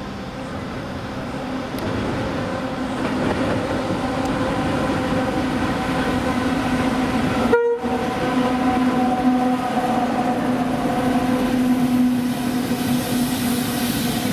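A consist of three G&W diesel-electric locomotives running light, their engines giving a steady humming drone with clatter from the wheels, growing louder as they come close and pass. The sound cuts out briefly about halfway through.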